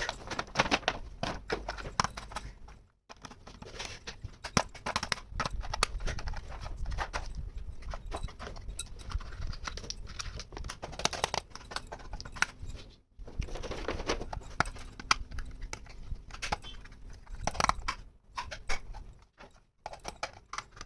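Small plastic toy kitchen pieces clicking, clacking and tapping as they are handled and set down, in an irregular run of light knocks with a few stretches of rustling.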